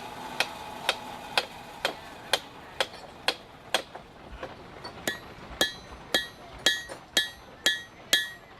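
Hammer striking metal in a steady rhythm, about two blows a second; from about halfway through, each blow carries a clear metallic ring.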